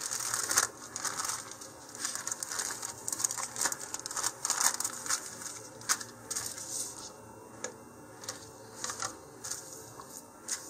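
Thin plastic sheeting crinkling and crackling as a printed plastic model-rocket parachute is unfolded and smoothed flat by hand. The crinkling is busy for the first several seconds, then thins to scattered crackles.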